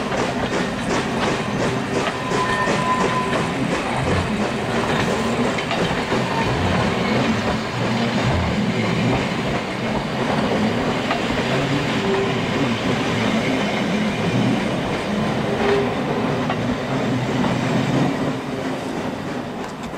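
Passenger train hauled by the Ivatt class 2 steam locomotive 46512 running by, its wheels clattering over the rail joints with a steady rumble. The sound starts to fade just before the end.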